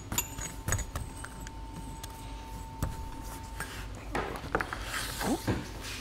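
Scattered light clicks, clinks and rubbing of metal parts being handled: a control cable's metal sleeve being slid on and a hydraulic control valve body picked up and turned. The clicks come closer together in the second half.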